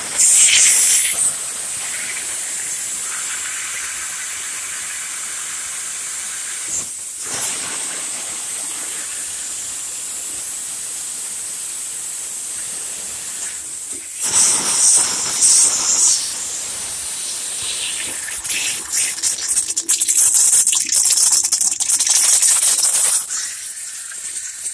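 A steady hiss of spray, with louder surges right at the start, about fourteen seconds in, and through most of the last several seconds.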